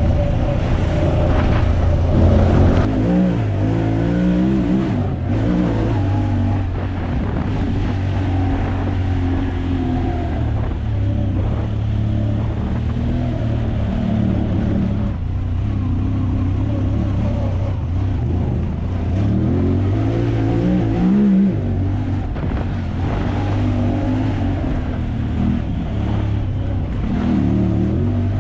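Off-road vehicle engine running steadily under varying throttle, its pitch rising and falling again and again.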